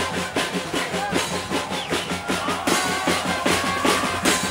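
Drums playing a fast, dense, steady beat of samba-style percussion, with bass drum and snare strokes packed closely together.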